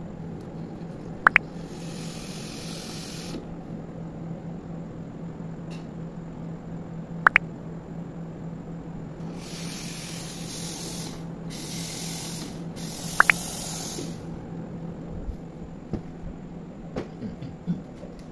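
Steam wand of a Gemilai espresso machine hissing in bursts with its valve left open: one short burst, then three close bursts later on, the sign that the boiler has come up to temperature. A steady low hum runs underneath, and three brief sharp ticks about six seconds apart are the loudest sounds.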